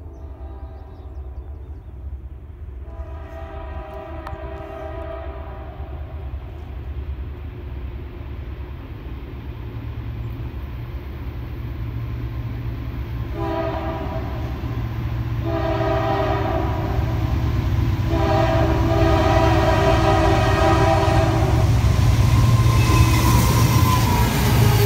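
CSX freight train's diesel locomotives approaching and passing close, a low engine rumble growing steadily louder, with wheel-on-rail noise rising near the end. A locomotive horn sounds four times: a long blast a few seconds in, two shorter ones, then a long one.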